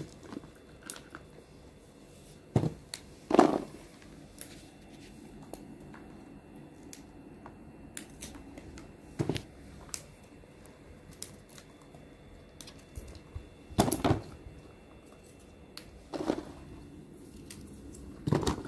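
Hands pulling the stems off hot green peppers, with small snaps and clicks throughout and about six louder knocks as peppers and small kelek melons are dropped into a plastic bowl and a metal tray.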